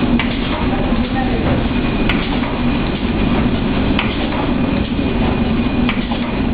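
Horizontal flow-wrap packaging machine running: a steady mechanical hum with a sharp click about every two seconds.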